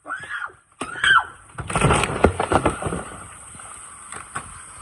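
Two short yells, then water splashing hard for about a second and a half and settling into a steady rushing spray from a leaking pipe.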